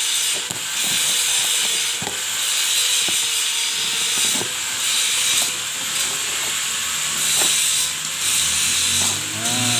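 Cardboard box and plastic wrap torn and rustled by hand, with scattered sharp crackles, over a constant high hiss and a faint steady hum.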